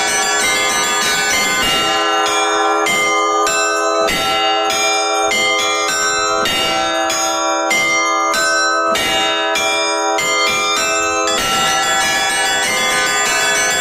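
Orthodox monastery bells rung in a continuous peal. Several bells of different pitch are struck in a fast rhythm of about two to three strikes a second, and their tones ring on and overlap.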